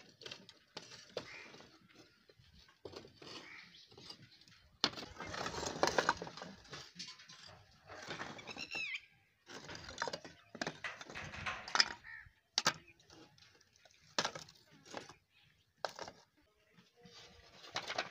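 Fired terracotta pot shards clattering and scraping against each other as they are picked up from a heap and laid down, in irregular bursts of clinks and sharp knocks.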